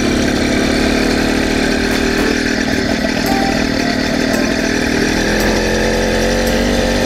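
Motorized bicycle's small two-stroke engine running while riding, still cold after sitting. Its pitch climbs in the second half as it picks up speed.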